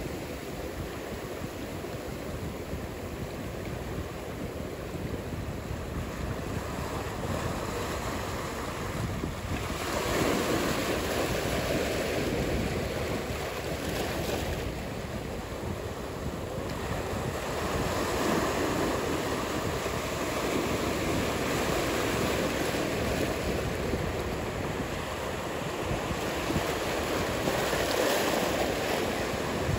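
Ocean surf breaking and washing, swelling louder every several seconds, with wind on the microphone.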